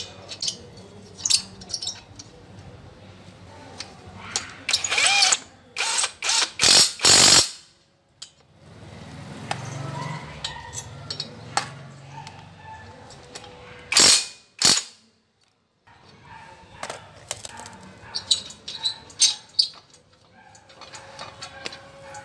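Loose steel parts of a homemade pedal assembly clanking and clinking as they are handled, loudest in a run of sharp knocks in the first third. In the middle, a cordless impact wrench runs for a few seconds on a pedal pivot bolt, followed by a single sharp click.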